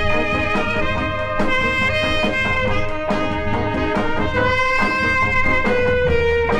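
A 1966 pop record playing: a lead instrument holds long melody notes that step downward over a steady drum beat.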